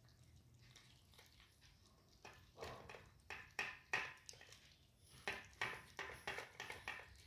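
Two kittens eating soft cooked rice from a steel plate: faint, wet chewing and smacking sounds, several a second, starting about two seconds in.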